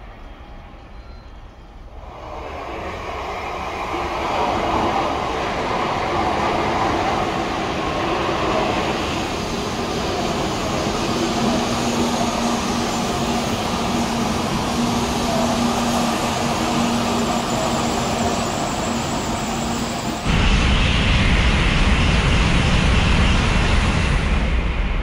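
N700A Shinkansen bullet train running past along the platform: a rushing rumble swells in about two seconds in and holds steady, with a steady hum in the middle. About twenty seconds in it turns suddenly louder and deeper.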